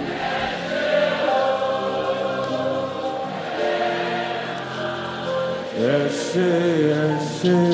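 Gospel worship singers holding long wordless notes together in a slow, solemn passage, swelling louder about six seconds in.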